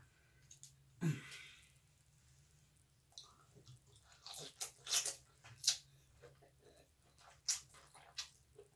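Close-up mouth sounds of someone eating pho rice noodles from chopsticks: a run of short wet slurps, smacks and chewing clicks, starting about three seconds in. A brief hum of voice comes about a second in.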